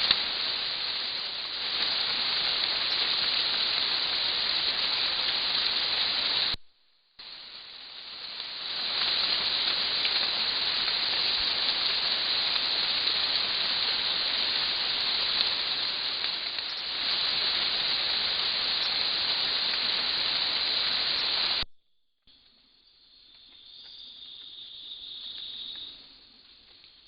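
Steady heavy rain hiss, broken off abruptly twice. After the second break, about 22 seconds in, it gives way to a much quieter stretch with insects calling on a steady high pitch.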